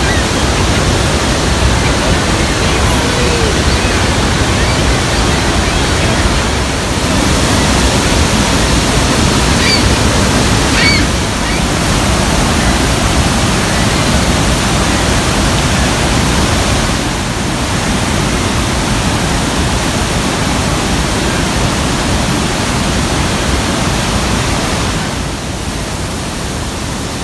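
Steady rushing of Bridal Veil Falls at Niagara, heard close at its foot, falling water crashing onto the rocks. A little quieter near the end.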